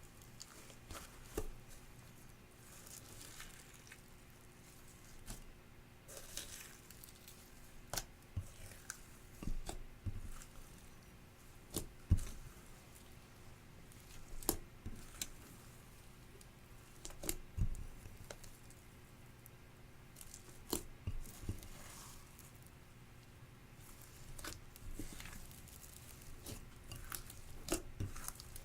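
Glossy slime being squished and stretched by hand, giving irregular sticky clicks and pops, a few of them sharper snaps, between soft squelching stretches.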